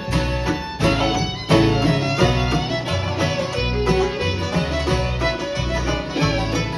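Background bluegrass music with fiddle over guitar and a steady bass beat.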